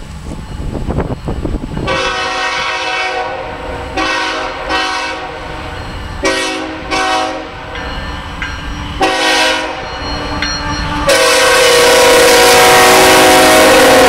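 Canadian Pacific freight locomotive's multi-chime air horn sounding for a road crossing: several long and short blasts, then one long blast held from about eleven seconds in as the locomotive comes alongside. That final blast is much louder, over the rumble of the passing train, and its pitch sags slightly.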